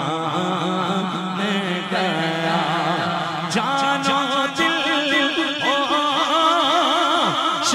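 Men's voices singing an Urdu naat into microphones: a lead voice in long, wavering melismatic lines, with other men's voices holding a steady hum beneath it.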